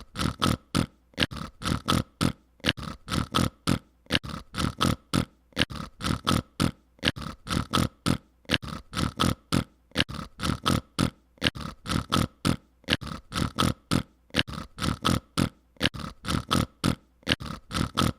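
Sound effect made with the mouth: short, sharp mouth noises in quick clusters of three or four, repeating about once a second in a steady, loop-like rhythm.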